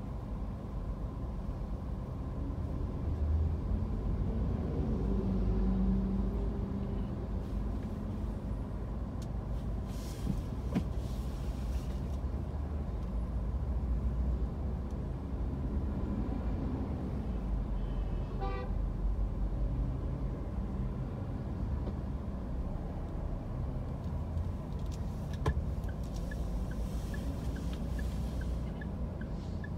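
Steady low rumble of engine and road noise from inside a car crawling in city traffic, with a short horn beep about two-thirds of the way in. Near the end, soft regular ticking sets in, about two ticks a second.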